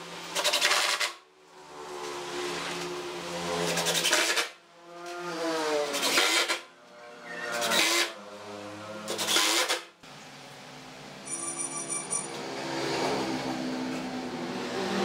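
Cordless Makita impact driver driving screws into pine boards: several runs in a row, each a rising motor whine that turns into a rapid hammering rattle as the screw bites, with short pauses between them. After about ten seconds it gives way to a quieter, steadier background sound.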